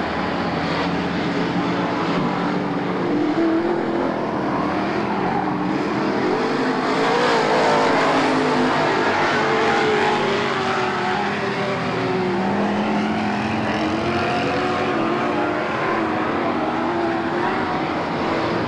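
Several stock car engines running at racing speed on a dirt oval, their pitch rising and falling as they lap, with a swell in loudness about halfway through as a car passes close by.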